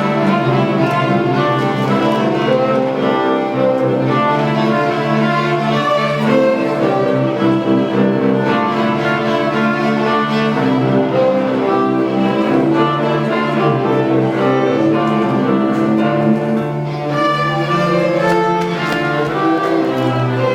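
A string ensemble of violins and cellos playing a tune together, with sustained low notes underneath.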